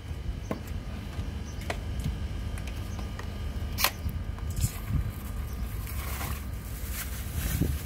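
A handful of short, sharp knocks and clicks from hands handling a tin can and a small cardboard box on a tiled floor, the loudest nearly four seconds in, over a steady low background rumble.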